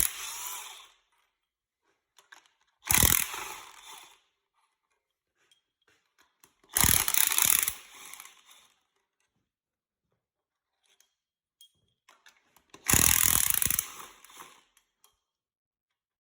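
Power tool run in three short bursts of about a second each, each tailing off as it stops, to loosen the cylinder-head bolts on an engine being torn down.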